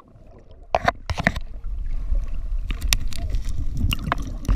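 Muffled sound heard from underwater: a low rumble of moving water with scattered sharp clicks and knocks, starting after a brief hush.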